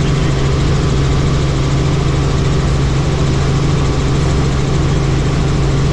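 Helicopter in flight: a steady, loud drone of engine and rotors with a strong low hum.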